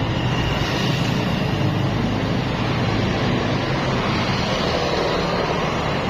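Steady road traffic noise: vehicle engines and tyres running past with a low rumble, and no horn call standing out.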